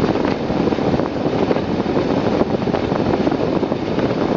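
Steady rushing noise inside a moving car's cabin: the heater fan blowing hard, mixed with engine and road noise.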